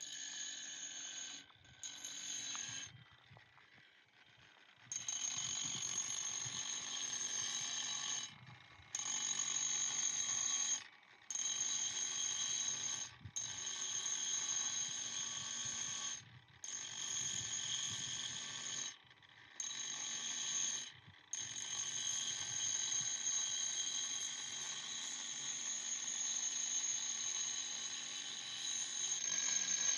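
Electric angle grinder with a rubber-backed sanding disc running against a slate surface: a steady, high-pitched whine. It breaks off abruptly several times and comes straight back.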